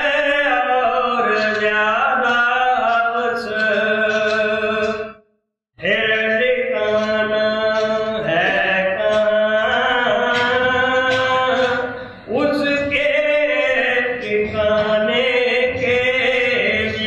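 A voice chanting a verse of a devotional hymn (bani) in a slow melodic line with long held notes. It breaks off briefly about five seconds in, then carries on.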